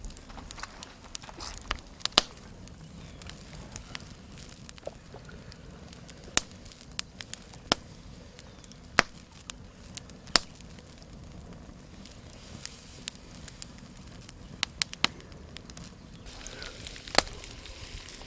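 Wood campfire crackling, with sharp pops at irregular intervals, several loud, over a low steady rumble.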